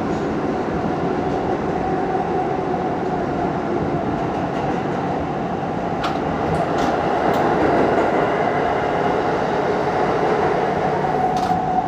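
R160 subway car heard from inside while running at speed: a steady rumble of wheels on rail under an even hum, with a few sharp clicks as the wheels cross rail joints.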